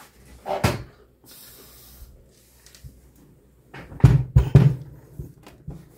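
A large manual die-cutting machine being handled and set down on a table: a knock, a brief rustle, then a cluster of heavy thumps and knocks in the last two seconds.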